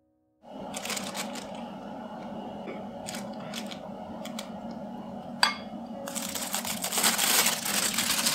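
A wooden spoon scoops whipped cream into a plastic piping bag standing in a glass jar, with a few light taps and one sharp, ringing knock against the glass about five seconds in. From about six seconds, louder crinkling of the plastic bag as it is handled and lifted out of the jar.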